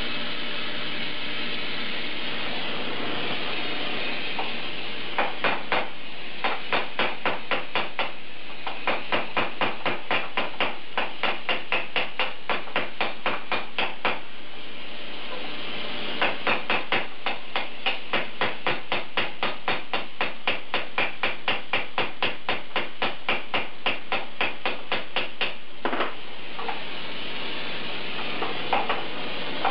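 Hammer blows on a red-hot 304 stainless steel pipe clamped in a bench vise, pounding it flat to fit a rectangular turbo flange. The blows come in rapid runs lasting several seconds, with short pauses between runs, and there are a few single blows near the end. Under them runs the steady hiss of a small handheld gas torch flame.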